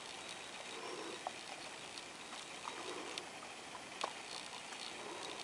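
Faint scattered ticks and crunches of gravel under a thin stray dog's paws as it steps about and sniffs at the ground, with one sharper click about four seconds in.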